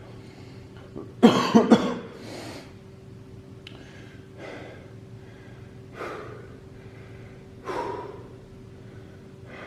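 A man coughing in a quick burst of three about a second in, then breathing hard in several heavy breaths, out of breath from a high-intensity workout circuit.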